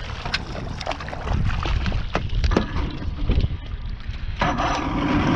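Wind buffeting the microphone on a small fishing boat, with water slapping the hull and scattered clicks and knocks. About four seconds in, a louder, steadier noise with a hum sets in.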